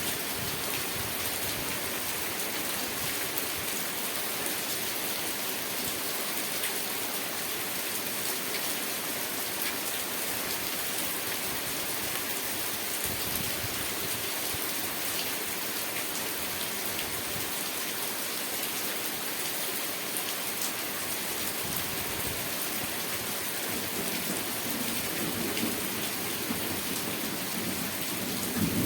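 Steady rain falling, an even hiss with scattered drop ticks. Near the end a low rumble of thunder builds.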